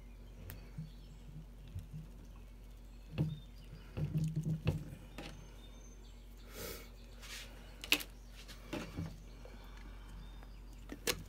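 Scattered clicks, taps and rustles of hands working on a rack-and-pinion steering gearbox: rubber bellows boots being slid onto the rack and cinched down with zip ties, over a steady low hum.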